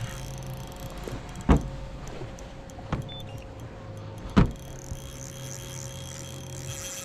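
Fishing reel being wound in stretches with a low geared buzz that starts and stops, while a hooked trout is played in. Three sharp knocks cut in, about a second and a half apart, louder than the reel.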